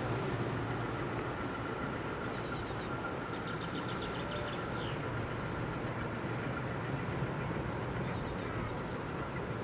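Steady low drone of a river motor launch's engine, with a faint steady whine above it. Over it, short trains of rapid high chirps recur every second or so.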